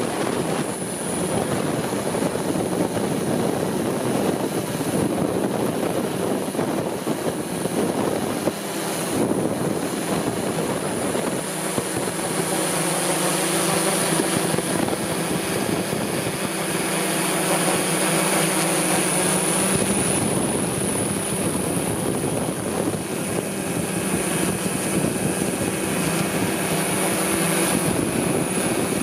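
DJI S1000 octocopter's eight rotors whirring steadily in flight, a steady hum under a thin high whine, its pitch shifting a little twice as the motors change speed.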